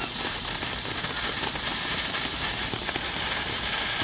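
Ground fountain firework spraying sparks: a steady hiss with dense crackling.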